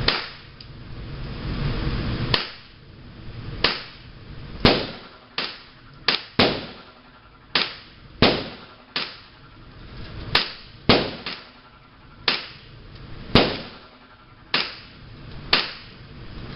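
Gunshots from several firearms on a shooting range: about eighteen sharp reports at irregular intervals, some in quick pairs, each followed by a short echoing decay.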